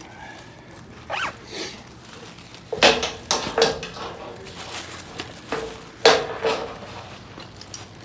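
Handling noise: a phone rubbing and scraping against a jacket sleeve as it is carried. It comes as a string of short rustles and scuffs, the loudest about three seconds and six seconds in.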